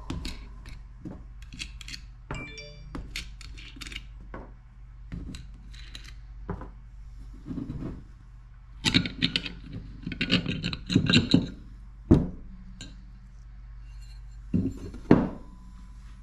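Metal clinks and clatter as the metal pins of an aluminium swimbait injection mold are pulled out and set down on a wooden bench and the mold plates are worked apart. A dense run of clatter comes about nine seconds in, with sharp knocks near the end, over a steady low hum.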